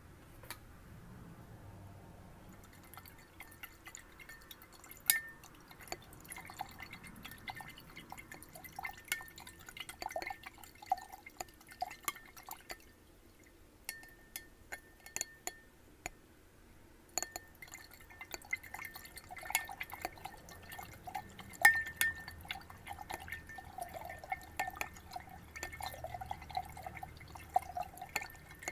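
Irregular taps on a glass that holds water, the glass giving a faint high ring after the taps. Water dripping and sloshing in it, most busily near the end.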